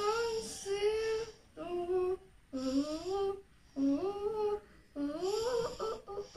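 A girl's voice humming a wordless tune in short phrases, many sliding up in pitch, with brief pauses between them.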